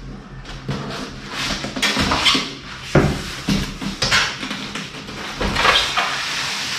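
A large corrugated cardboard shipping box being handled: flaps and carton rubbing and scraping against the desk, with a couple of dull thuds as the box is tipped and set down, and a longer steady scraping near the end as the carton slides off the foam-packed case inside.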